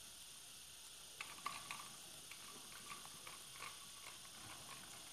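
Faint light clicks and scrapes of a small screwdriver working a wire into a contactor's coil terminal screw. Irregular ticks start about a second in and continue sparsely.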